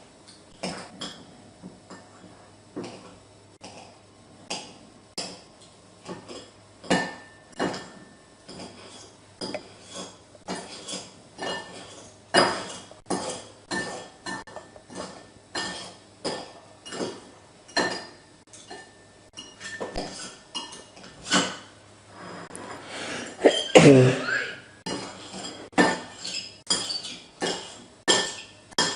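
Close-up eating: a woman chewing food, with sharp mouth clicks about once a second. About 24 seconds in comes a short, low burp, the loudest sound.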